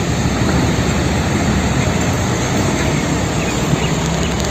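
Fuel tanker truck driving past: a steady engine rumble mixed with road noise.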